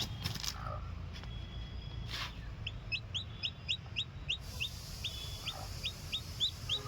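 Newly hatched chick peeping: a steady run of short, high peeps, about four a second, after a couple of brief knocks near the start, over a low rumble.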